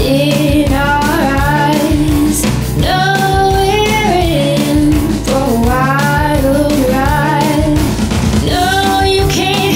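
A song: a voice sings a gliding melody over band backing, with a steady bass and a regular beat.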